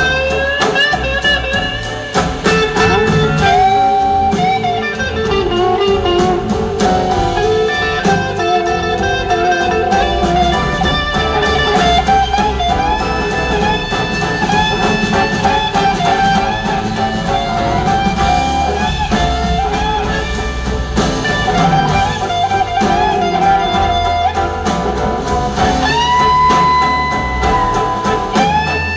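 Live blues-rock band: an electric slide guitar solo with gliding, bending notes over a full drum kit, ending in one long held high note.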